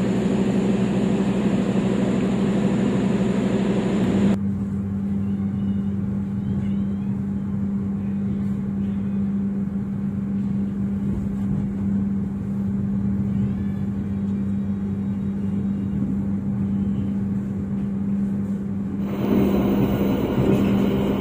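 Standing diesel-hauled passenger train idling: a steady low engine hum. A higher hiss above it cuts out suddenly about four seconds in and comes back near the end while the hum runs on unchanged.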